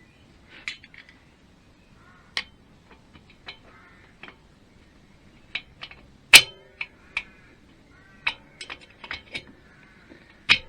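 Hand tools and small metal engine parts clinking and tapping: a dozen or so irregular clicks, some with a short metallic ring. The loudest is a sharp clank about six seconds in.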